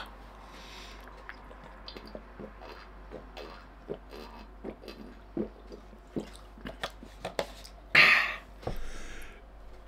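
A man gulping full-fat milk straight from a carton: a run of soft, irregular swallowing clicks, then a loud breath out about eight seconds in as he lowers the carton.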